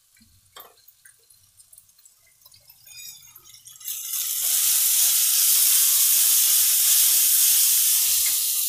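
Onion-tomato masala frying in a kadai, stirred with a steel ladle. After a few light clicks, a loud sizzle sets in about halfway through and eases slightly near the end. This is the masala being fried (bhuna) with freshly added ground spices.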